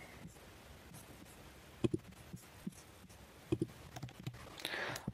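A handful of faint, short clicks from a computer keyboard and mouse being operated, some in pairs, over quiet room tone.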